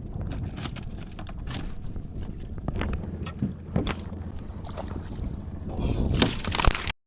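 Wind buffeting the microphone aboard a small boat, with scattered knocks and clatter against the hull. The clatter grows louder near the end, then the sound cuts off abruptly.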